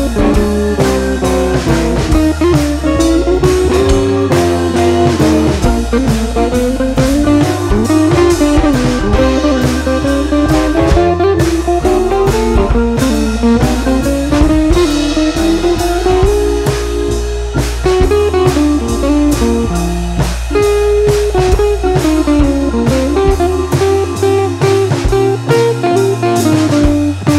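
Background music: a blues guitar tune with a melody that slides up and down over a drum kit keeping a steady beat.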